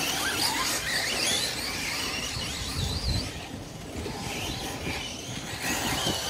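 Radio-controlled cars running on a dirt track, their motors whining up and down in pitch as the throttle changes, over a low rumble that is loudest about three seconds in.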